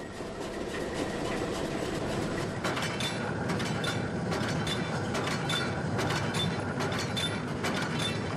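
Belt-driven ore-processing machinery running with a steady mechanical clatter. From about three seconds in, a regular click comes roughly every two-thirds of a second.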